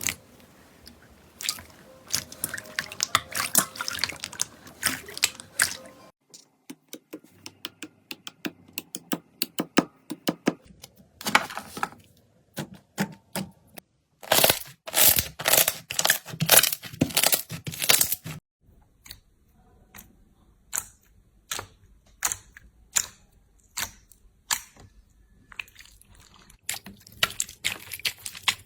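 Slime being pressed, poked and squished by hand, giving runs of sharp crackling clicks and wet squelching pops. Several short segments follow one another, each with a different texture, the loudest and densest crackling in the middle.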